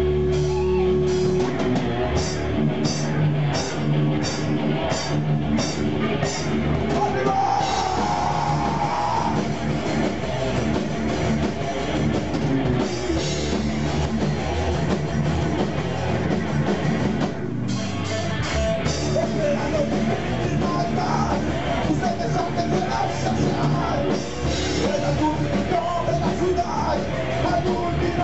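Heavy metal band playing live: distorted electric guitars and a drum kit, with vocals.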